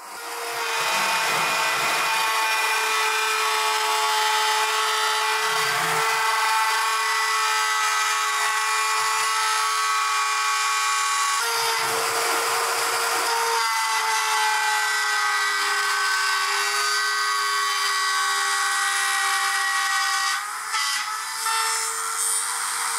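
Router in a router table switched on and running up to a steady high whine, then cutting into a hardwood board fed along the fence. A burst of cutting noise comes about halfway through, and the whine sags slightly in pitch under the load after it.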